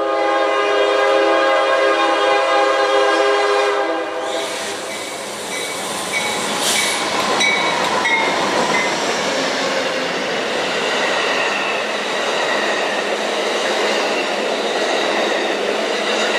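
A CSX freight locomotive's multi-chime horn sounds one long chord for about four seconds. Then the train passes close by: the freight engine leading a dead Amtrak Superliner passenger train, with steady wheel-on-rail noise from the bi-level cars.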